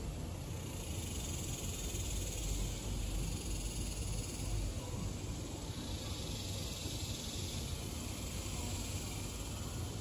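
Wind blowing through banana leaves and rumbling on the microphone, with a steady high insect drone behind it that drops lower in pitch about halfway through.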